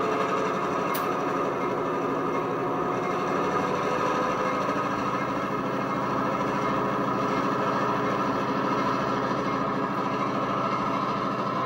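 TCS WOW sound decoder playing EMD F7 diesel prime-mover sound through twin Tang Band speakers, the engine running steadily with a deep, bassy throb. A sharp click comes about a second in.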